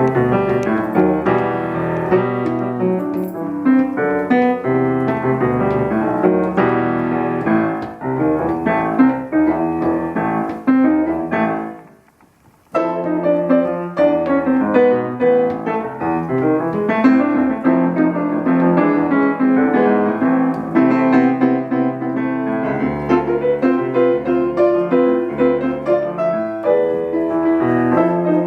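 Piano playing a song's introduction, with no singing yet. It breaks off briefly about twelve seconds in, then carries on.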